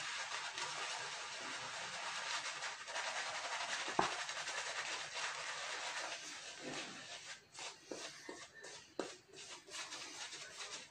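Shaving brush lathering soap on a bearded face: a steady scratchy swishing of the bristles through the lather, breaking into separate short strokes for the last few seconds, with a sharp click about four seconds in.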